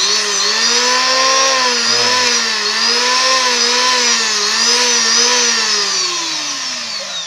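Electric hand planer running free at full speed, not cutting, in a test run after its cracked block was repaired. Its pitch wavers slightly, then falls as it begins to slow down near the end. The owner finds that the repair has made it usable again.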